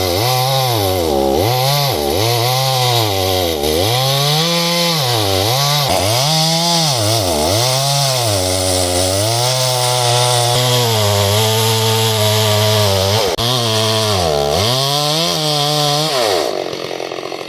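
Chainsaw cutting through a big dead tree trunk, its engine speed dipping and recovering again and again as the chain bites into the wood, then running high and steady for a few seconds. Near the end it drops to a lower, quieter run.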